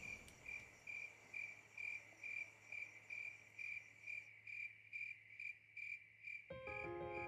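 A cricket chirping at a steady, even pace, about two high chirps a second, over a faint low hum. Soft held musical tones come in near the end.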